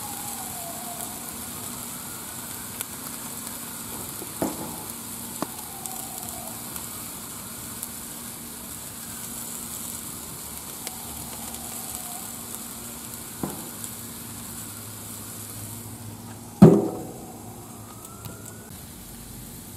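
Onions, mushrooms and green peppers sizzling in butter on a hot flat-top griddle, a steady hiss. A siren rises and falls faintly behind it, a few light clicks are heard, and one sharp knock comes late on.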